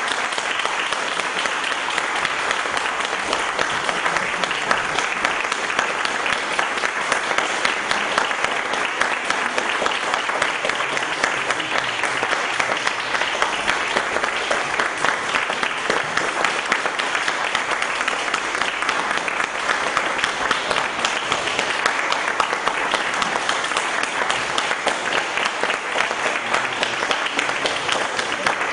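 Audience applauding steadily and without a break, dense clapping from many hands.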